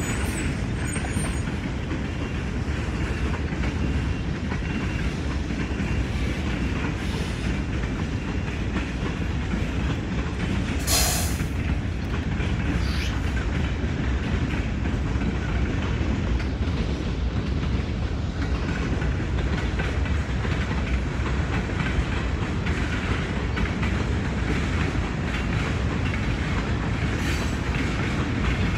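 Freight train boxcars rolling past steadily, a continuous rumble of wheels on rail. One brief sharp noise is heard about eleven seconds in.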